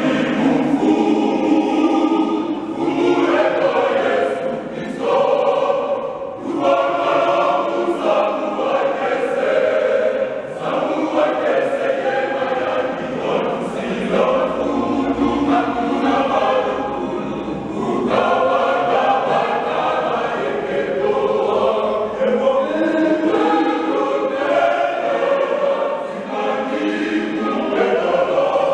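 Male choir singing together in several-part harmony, in phrases with short breaks every few seconds.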